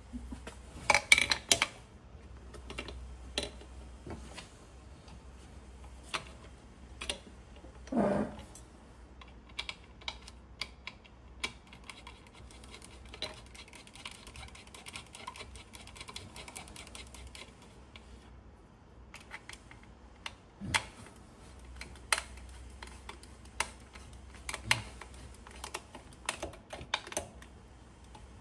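Small metal parts clicking and knocking irregularly as they are handled and fitted into an aluminium machine housing by hand. There is a louder clatter about a second in and a dull thump about eight seconds in.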